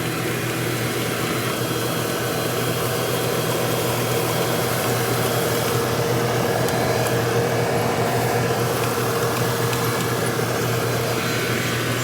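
Kubota ER470 rice combine harvester running steadily: a constant machine drone with a steady hum under it.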